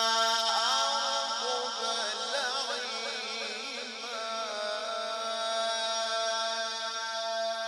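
A man's voice in melodic Qur'an recitation (mujawwad tajwid), drawing out a vowel with quick wavering ornaments. It settles into one long steady held note for the last few seconds.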